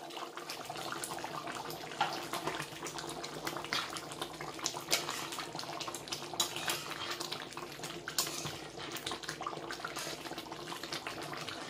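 Thick chicken curry gravy bubbling as it cooks down in a metal karahi, with a slotted metal spoon stirring and scraping through it: a busy wet sound full of small irregular pops and clicks.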